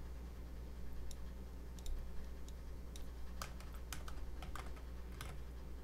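Typing on a computer keyboard: irregular key clicks as numbers are entered, coming in a quick cluster a little past the middle.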